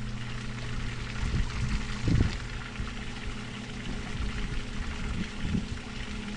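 Pump sitting in the water inside a flooded boat, running with a steady low hum as it draws the water out through a hose, with water pouring and trickling.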